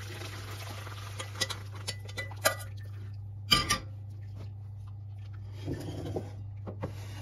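Water and blanched walnuts poured from a steel saucepan through a metal mesh strainer into a glass bowl, followed by a run of clinks and knocks of the strainer against the bowl, the loudest a little after three seconds in, and the strainer being shaken near the end. A steady low hum runs underneath.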